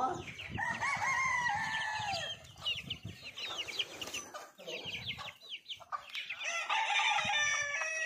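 Desi country chickens calling: many short, high, falling chick peeps, with a hen's longer drawn-out calls about a second in and again near the end.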